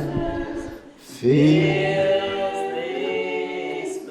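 A group of voices singing a slow worship song, largely unaccompanied. The word "presence" ends just after the start, there is a brief breath, and then the voices hold one long note from about a second in.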